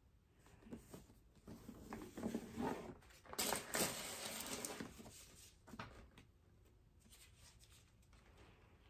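Cardboard gift box and paper packaging being handled: scattered soft knocks and crinkles, with a denser stretch of paper rustling about three and a half seconds in, then quieter handling.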